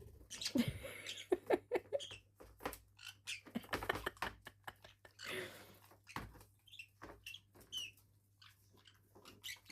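Parrots scuffling over a sneaker: irregular taps, scratches and nibbling clicks of beaks and feet on the shoe, with a few brief high chirps in the second half.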